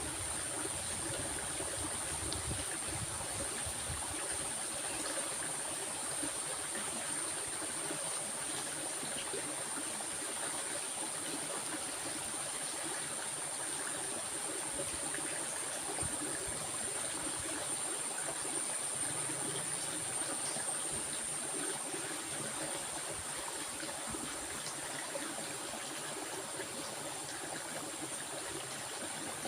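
Water of a stream flowing steadily, with a steady high-pitched whine running over it.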